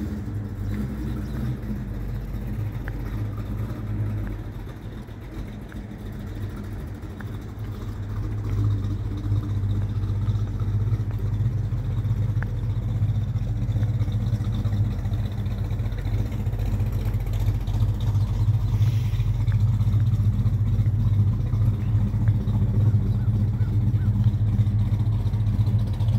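An engine idling steadily: a low, even hum that swells louder about a third of the way in and then holds.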